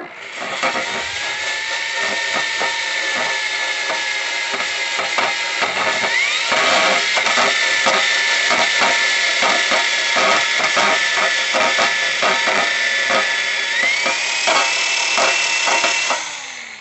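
Power tool spinning a wire brush against a lawn mower's soft steel deck to take off sharp burrs, a steady motor whine over dense rapid scratching and clicking of the bristles. The motor's pitch rises about six seconds in and again near fourteen seconds, and it winds down near the end.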